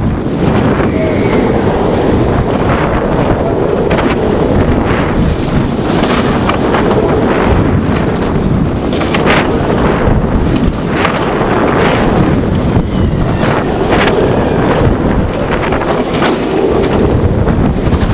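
Heavy wind buffeting the microphone over the rumble of an RMC Raptor single-rail roller coaster train running at speed through its elements, with a few brief sharp clatters along the way.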